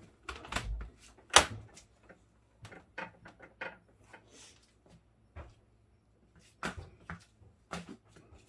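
Clicks and knocks of Samsung Zipel refrigerator parts being handled and fitted back after a repair, a scattered series with the loudest knock about a second and a half in.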